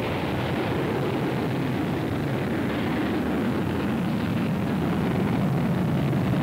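Rocket engine at liftoff: a dense, steady rumbling noise that grows slightly louder as the rocket climbs.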